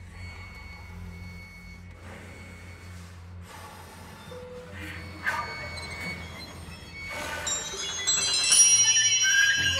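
A chamber ensemble of strings, winds, piano and percussion plays contemporary music. A low held drone sits under soft, scratchy noise textures, with sharp attacks about five seconds in. Near the end it swells into loud, bright ringing high tones.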